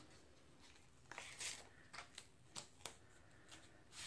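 Faint rustling and a few soft ticks from a plastic stencil sheet being handled on a cutting mat.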